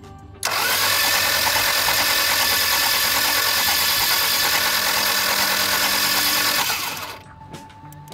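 A loud, steady mechanical noise starts abruptly about half a second in, holds evenly for about six seconds, then fades out.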